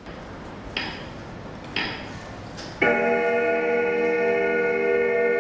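Quiz countdown timer: two short ticks about a second apart, then from about three seconds in a loud, steady electronic chime tone held on, the signal that time is up.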